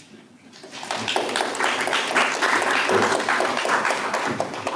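Audience applauding: many hands clapping in a dense patter that begins about a second in and keeps up steadily.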